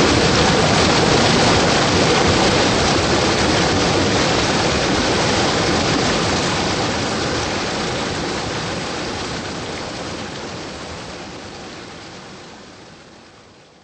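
Stream water rushing and splashing down a small cascade over rocks, a steady rush that fades out gradually over the last several seconds.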